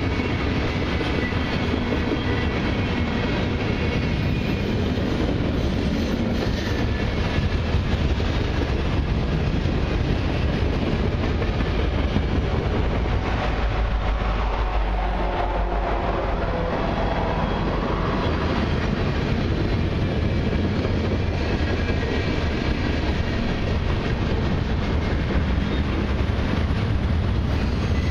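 Long freight train rolling past: a steady heavy rumble with wheel clatter from the passing tank cars, flatcars and boxcars. About halfway through a mid-train CN diesel locomotive goes by, its engine sound changing pitch as it passes.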